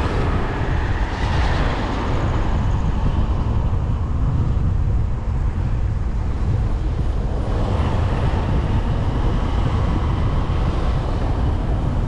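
Steady low rumble of a vehicle driving along a road, with wind buffeting the microphone. A hiss of tyres or passing air swells about a second in and again near eight seconds.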